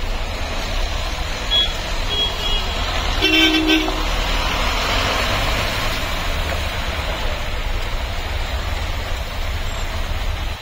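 Traffic on a flooded street: car tyres hissing through standing water over the low rumble of running engines, with one short car horn toot a little over three seconds in.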